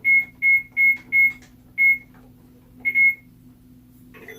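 Electronic beeps from a children's toy food truck: six short, high beeps on one pitch, four in quick succession, then two more spaced farther apart.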